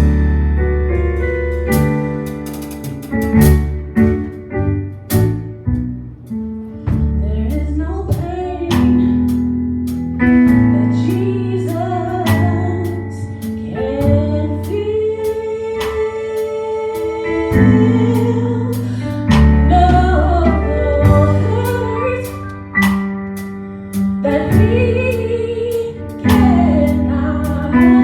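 Gospel worship music: keyboard chords, bass and drums, with a solo voice singing from about eight seconds in.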